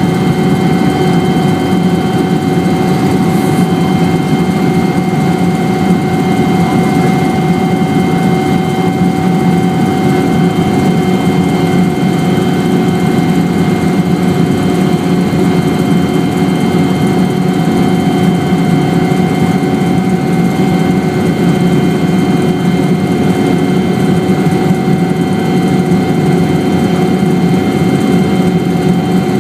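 Helicopter's turbine engine and rotor running steadily, heard on board: a constant low rumble with a steady high whine over it.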